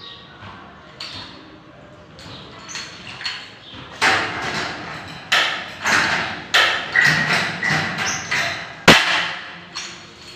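A hand tool worked on a galvanized steel metal stud: a string of sharp metallic snaps and clanks, about one to two a second, starting about four seconds in, with the loudest one near the end.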